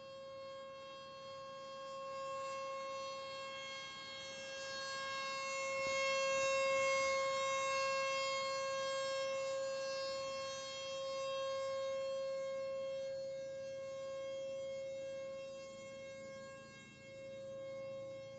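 Outdoor civil defense warning siren sounding a steady tone. It holds one pitch while its loudness slowly swells and fades, loudest about a third of the way in.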